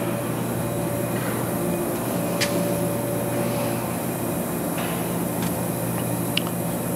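Steady hum of industrial machinery running, holding a few steady tones, with a couple of faint ticks.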